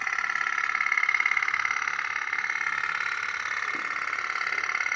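Toy pop-pop steam boat running in a tub of water: its little engine makes a rapid, even putt-putt that keeps going steadily.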